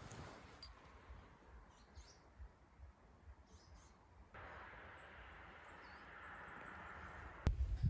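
Quiet woodland with a few faint bird chirps. About halfway through, a steady hiss comes in abruptly, and a loud low thump lands near the end.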